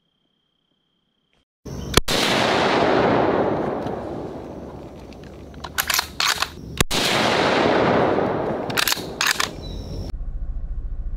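Two loud blasts about five seconds apart, each rolling away slowly over several seconds, with sharp crackling in between. Near the end a steady low engine drone takes over.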